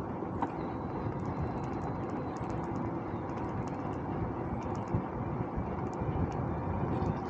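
Steady wind rush on the microphone and tyre rumble from a bicycle being ridden, with faint high ticks scattered throughout.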